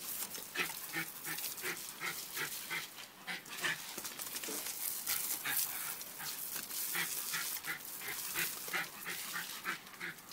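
A dog whining in quick, short, excited bursts, about three or four a second, while it snaps at a garden hose's spray. The hiss of the spray nozzle runs underneath.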